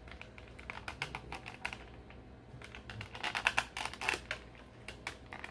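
Fingers handling and flexing a clear plastic blister tray holding an action figure: a run of small plastic clicks and crackles, bunched most densely about three to four seconds in.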